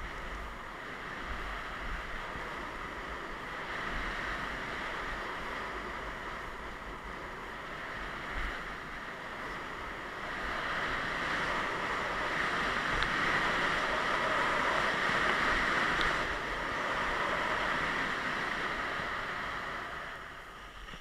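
Skis sliding and scraping over packed snow during a fast downhill run, with wind buffeting the microphone. The hiss grows louder about halfway through, then falls away sharply at the very end as the skier stops.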